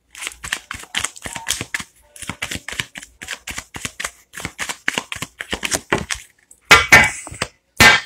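A deck of tarot cards shuffled by hand: a quick, irregular run of card slaps and clicks, several a second, then two louder rustles near the end.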